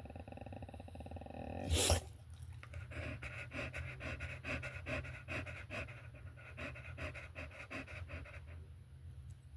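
Dog panting fast and evenly, about four breaths a second, stopping shortly before the end. Before the panting, a drawn-out vocal tone is cut off by a short, loud blast of breath about two seconds in.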